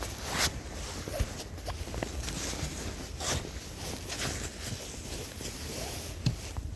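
A snow brush sweeping and scooping powdery snow off a car, in a series of irregular swishes with a few light knocks.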